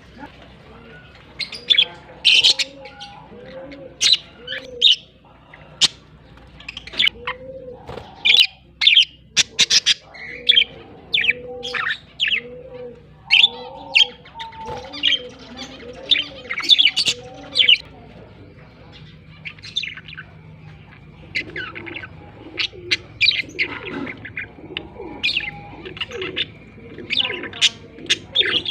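Pet budgerigars chirping and chattering in many short, sharp, high calls, with a low note repeating about twice a second underneath for much of the time.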